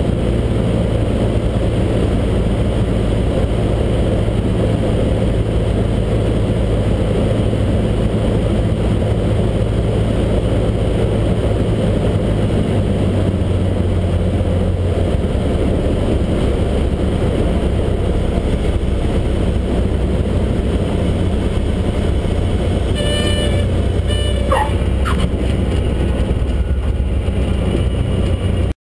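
Cabin sound of a Cessna 152's Lycoming four-cylinder engine and propeller running at low power, with airflow noise, on approach and landing. The engine note changes about halfway through. About three-quarters of the way in a short pulsing horn-like tone sounds, then a brief rising squeal.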